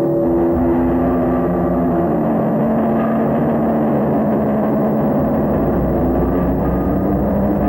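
Improvised noise music of piano, drums and audio feedback: sustained droning tones that shift in pitch every second or two over a steady low rumble.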